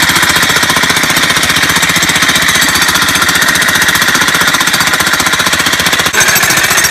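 Corded electric demolition hammer (jackhammer) running, its chisel bit pounding into packed soil and rubble with loud, rapid, continuous blows. There is a brief break about six seconds in.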